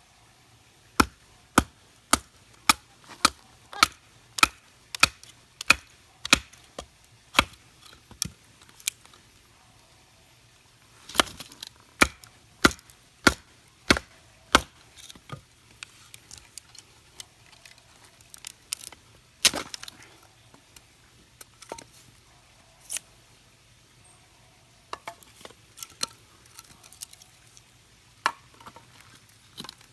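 Kitchen knife chopping on a cutting board: sharp, evenly spaced knocks about one and a half a second, a pause of about two seconds, another run, then slower, scattered chops near the end.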